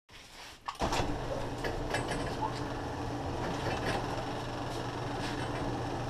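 Sectional garage door opening: an opener motor starts about a second in with a clunk and runs with a steady hum, while the door rolls up its tracks with a rumble and occasional clicks.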